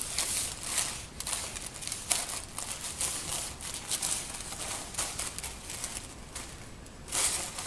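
Wrapping paper crinkling and rustling in irregular bursts as a Jack Russell terrier mouths and tugs at a wrapped present, with a louder burst near the end.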